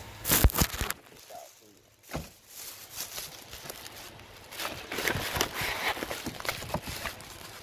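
Handling noise from a handheld phone: a few sharp knocks in the first second and one more about two seconds in, then irregular rustling of clothing against the microphone with light steps.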